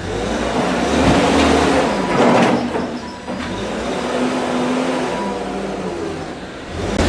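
Heavy machine's diesel engine revving up and down, its pitch rising and falling, during demolition work.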